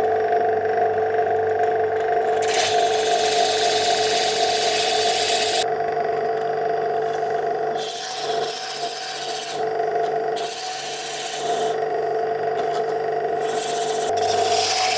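Pillar drill running steadily, its motor giving a constant hum, as a Forstner bit bores into the centre of a green conifer log section. The bit bites in four spells, each adding a hiss of wood being cut over the hum.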